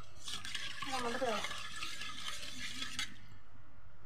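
A spatula stirring a thin fish curry in a metal kadai, scraping and sloshing for about three seconds, then stopping.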